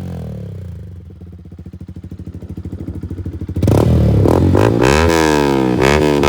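Motorcycle with a newly fitted loud aftermarket exhaust: the revs die down to an idle with a quick, even pulse, then the throttle is blipped several times from about halfway, the exhaust note sweeping up and down and much louder.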